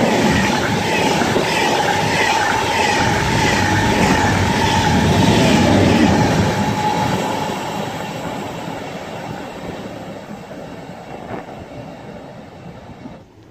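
KTX-Sancheon high-speed train passing through without stopping: a loud rush of wheels and air with a steady whine. It stays loud until the rear power car goes by, about six seconds in, then fades steadily as the train runs away down the line.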